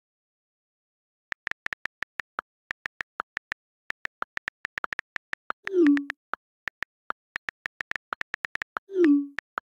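iPhone on-screen keyboard key clicks at typing speed, starting about a second in, with two louder, deeper pops about six and nine seconds in.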